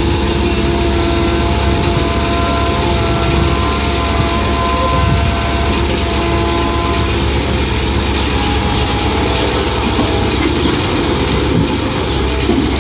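Komatsu PC130-8 hydraulic excavator running steadily while working, its diesel engine joined by a whine of several steady tones through the first half that fades out about seven seconds in.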